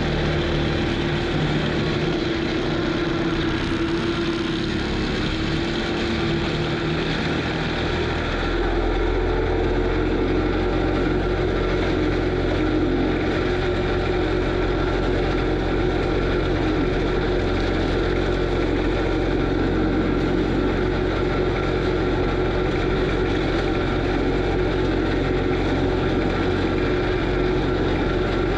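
Kubota SVL95 compact track loader's diesel engine and hydraulics running hard, driving an FAE forestry mulcher: a loud, steady drone with a whining tone over it. About eight seconds in the sound changes, becoming steadier with a stronger low hum.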